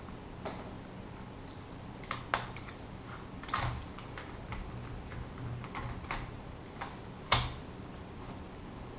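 Scattered plastic clicks and taps from hands handling a Dell Inspiron 15R 5537 laptop's case while its battery is fitted back in, with one sharp click about seven seconds in.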